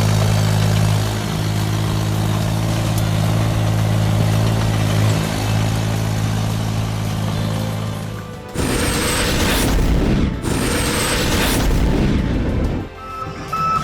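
A deep, steady machine drone of constant pitch runs for about eight seconds. It gives way to a loud rushing, crashing noise lasting about four seconds, and a repeated high beep starts near the end.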